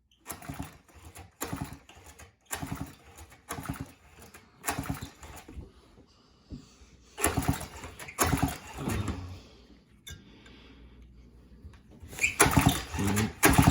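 Recoil starter of a vintage Skilsaw 1631 chainsaw pulled over and over in quick rasping strokes, with two short pauses. The spark plug is out for a spark check, so the engine spins without firing.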